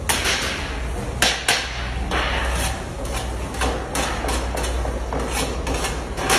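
Metal clanks and scrapes of a ladle knocking against the metal lids and rim of a huge cauldron of rice, with irregular sharp knocks over a steady background hiss.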